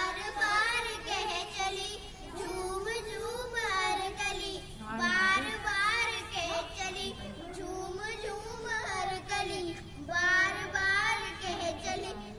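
Young schoolgirls singing a Hindi welcome song (swagat gaan) in high child voices, in sung phrases of a few seconds each.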